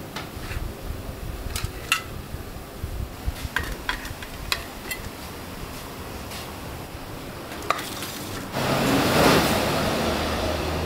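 Metal spatula and ladle clinking against stainless steel plates and a pot as curried fish heads are served, a few sharp clinks in the first half. About eight and a half seconds in, a louder steady rushing noise starts.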